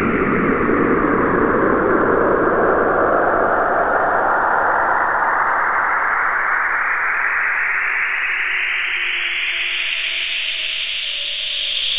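Synthesized noise texture: a dense hiss whose band slowly sweeps upward, from a low rumble to a high hiss, over about ten seconds, with faint steady tones entering near the end.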